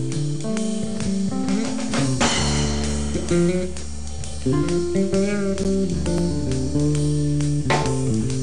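Band music with guitar, bass guitar and drums playing.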